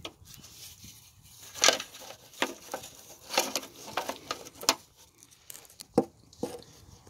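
Handling noise of someone working under a car: a jacket sleeve rustling, with irregular short clicks and taps, the sharpest about two seconds in and again near the end.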